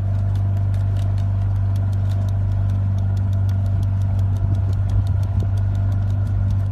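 Motorboat engine running with a steady low drone, a fast, even ticking laid over it.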